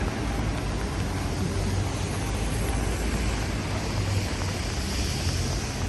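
Steady low rumble of city traffic on a rain-wet street, with a brief louder hiss near the end.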